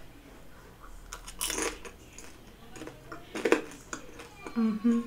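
Close-up eating sounds of a dumpling being bitten and chewed, with two short noisy mouth sounds about a second and a half and three and a half seconds in. Near the end a closed-mouth hum of a few stepping notes starts while she chews.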